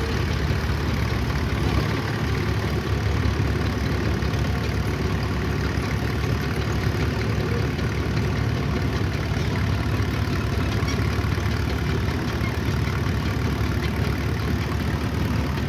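Engine of antique earthmoving equipment running steadily with a deep, even sound and no sharp events.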